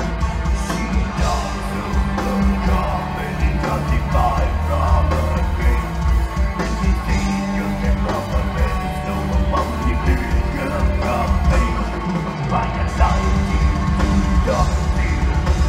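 Extreme metal band playing live: distorted electric guitars, bass and drums with harsh yelled vocals, heard through the loud PA from within the crowd. The low end drops out briefly about twelve seconds in, then comes back.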